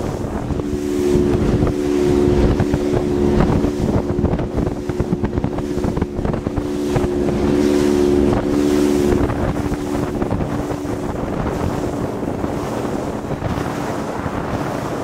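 A small fishing boat's engine running steadily, with wind buffeting the microphone. The engine drone eases a little about nine seconds in.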